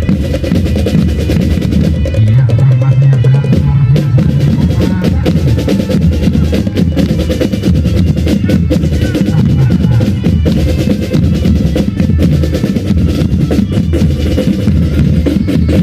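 Marching band drumline playing: rapid snare drum strokes and rolls over bass drums in a fast, continuous beat. A low held note sounds over the drumming about two seconds in for a second or two.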